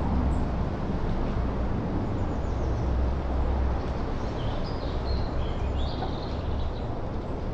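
Steady wind noise with an uneven low rumble, and birds chirping in short high phrases from about two seconds in.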